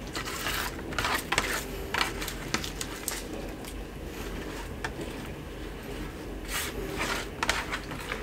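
Hands pressing chopped vegetable stuffing into a large raw whole fish in a metal baking tray: irregular short squelches, rubs and scrapes, busiest near the start and again past the middle, over a steady low hum.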